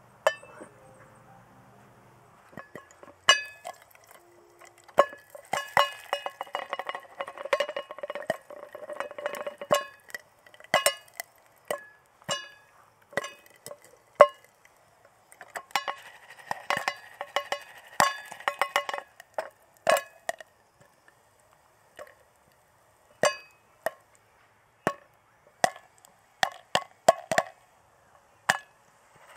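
Popcorn kernels popping in a covered aluminium Trangia pot over a spirit burner, each pop a sharp click that rings off the pot and lid. Two longer spells of dense rattling come as the pot is shaken, then single pops spaced a second or two apart near the end.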